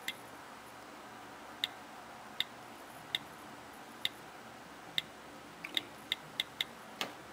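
iPhone 4 on-screen keyboard clicking as a web address is typed, one short tick per key press. About a dozen irregular ticks, coming faster in the second half.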